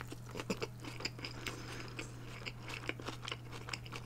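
Close-miked bite and chewing of a burger: many small, irregular crunches and wet mouth clicks. A steady low hum runs underneath.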